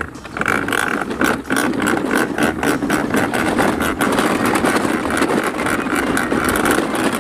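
Large plastic toy dump truck pushed over grass and dirt, its plastic wheels and the loaded toy cars in its bed rattling in a steady clatter of dense clicks.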